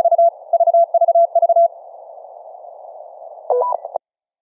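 Morse code (CW) tone at 35 words per minute, sending the letter V over and over (dit-dit-dit-dah), received on a Family Radio Service walkie-talkie. After the keying stops comes about two seconds of radio hiss, then a short two-pitch chirp: the radio's tail tone at the end of the transmission. The sound then cuts off suddenly.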